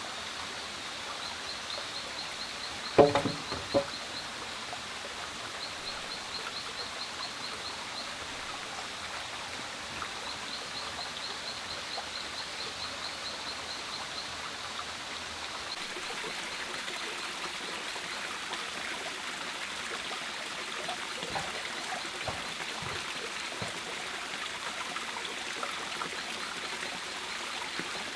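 Steady background of running water, with a rapid high pulsing trill repeating in short runs over the first half. Two sharp knocks come about three seconds in, and a few light clicks later.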